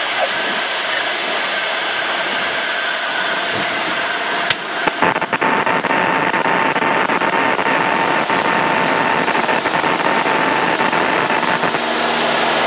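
1978 Cessna 172's four-cylinder Lycoming engine running, heard through the pilot's headset intercom as a steady drone and hiss while the plane rolls on the runway. A click comes about four and a half seconds in, and after it a steady whine sits over the drone for about six seconds.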